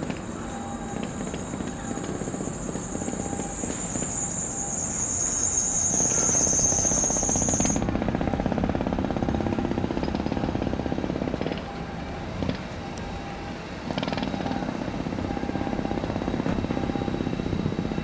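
Steady machinery rumble with a fast fine pulse, under a high thin whine that cuts off suddenly about eight seconds in.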